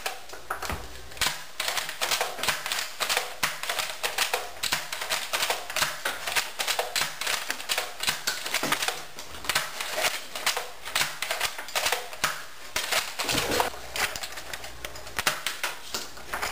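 Toy foam-dart blasters firing rapidly: a continuous clatter of sharp plastic clicks and pops, several a second.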